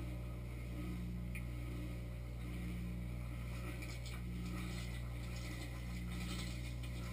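Dishwasher on a rinse cycle, heard from inside the tub: the pump motor hums steadily with a throb that repeats about every one and a half seconds, while water spray hisses and spatters, growing stronger about halfway through.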